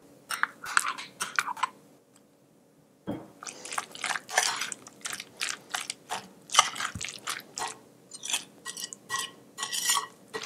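Metal spoon stirring a thick mayonnaise salad of chopped crab sticks and boiled eggs in a glass bowl: irregular wet squelches and scrapes against the glass. The stirring pauses briefly about two seconds in, then picks up again, faster.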